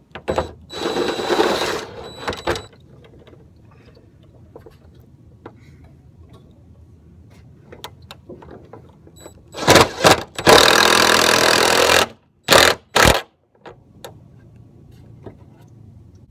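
DeWalt cordless impact driver hammering a long gutter screw through the gutter's sleeve into the eave, in place of an old gutter spike. It runs for about two seconds, pauses, runs again louder for about two seconds, then gives two short bursts to finish.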